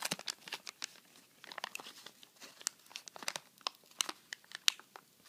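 A 1980 Topps wax pack's waxed-paper wrapper and its baseball cards being handled, making irregular crinkling and crackling.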